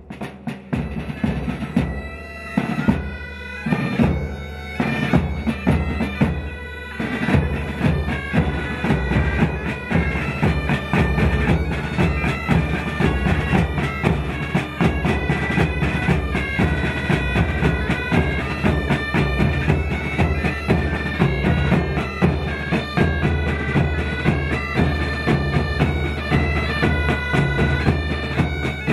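Pipe band playing: bagpipes carry a melody over their steady drone, with drums beating along. The drum strokes stand out most in the first several seconds.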